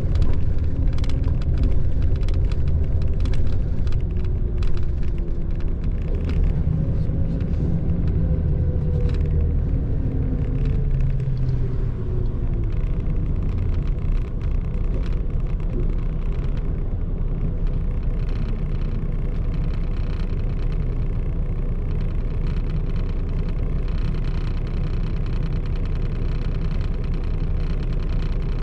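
Mitsubishi Fuso Aero Ace coach heard from inside the passenger cabin: the diesel engine and road noise as the bus slows, the engine note falling over the first ten seconds or so, then a steady low rumble as it rolls slowly into the bus stop.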